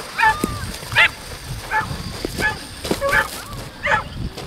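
Dog barking and yipping in a repeated string of short, high barks, about one or two a second.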